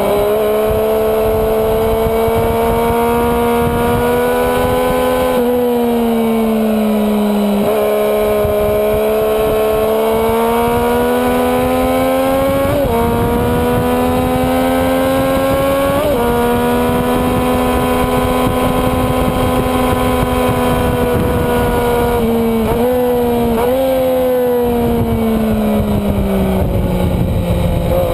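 Sport motorcycle engine heard onboard at speed, its pitch climbing steadily between gear changes, with sudden drops on shifts. A cluster of quick rev spikes comes about three quarters of the way in, and the pitch falls toward the end. Wind rush on the microphone runs under it.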